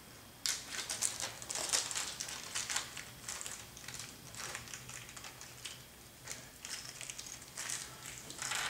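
Hands handling small screws and parts for a servo mount on a workbench: irregular light clicks and rustling, starting about half a second in.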